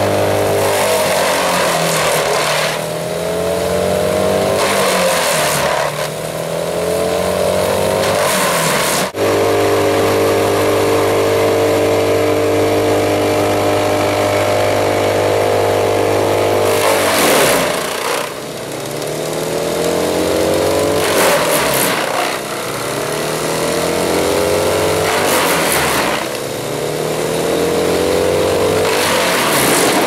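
Morbark M15R drum wood chipper chipping a large log. The engine's pitch sags under load and recovers again and again as the feed wheels pull the log into the drum, with repeated loud bursts of crunching, splintering wood. For several seconds in the middle it runs steady at full speed.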